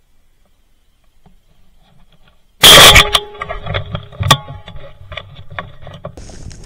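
A single very loud shotgun blast about two and a half seconds in, fired at a wild turkey, followed by a run of sharp knocks and rattles.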